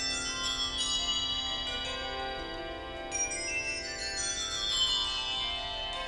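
A set of 24 handbells ringing a touch of changes: quick rows of single struck bell notes, each row stepping down from the highest bells to the lowest, with the notes ringing on and overlapping.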